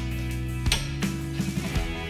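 Background music: guitar strummed over steady held bass notes.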